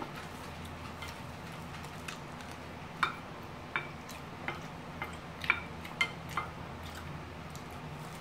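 Chopsticks and a spoon clicking lightly against ceramic plates, about ten short taps through the middle, over a steady low room hum.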